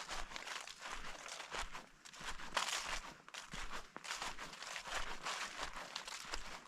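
Footsteps of a person walking through an autumn forest, each step a short crunching rustle of the forest floor, in a steady walking rhythm.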